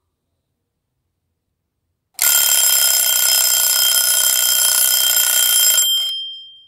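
Alarm clock ringing loudly and steadily for about three and a half seconds, starting about two seconds in, then cutting off sharply with a brief ring-out.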